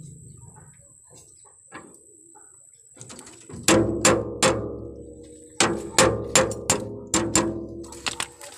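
Hammer blows on the steel steering knuckle and tie rod end, each a sharp ringing metal clang. They come in two runs: about three blows starting some three and a half seconds in, then about seven more from five and a half seconds in. The work is knocking the tie rod end loose for replacement.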